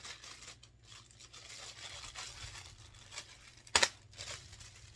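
Packaging being unwrapped: rustling and tearing of wrapping material, with one sharp click a little under four seconds in.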